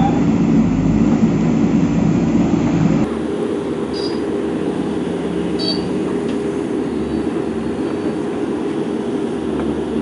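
Steady machine drone of a motor running, changing abruptly to a different, slightly quieter steady drone about three seconds in.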